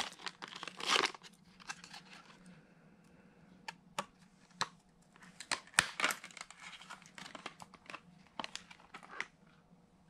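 Clear plastic clamshell pack of RAM modules being pried open by hand: plastic crinkling with irregular sharp snaps and clicks, the loudest about a second in and again just before six seconds.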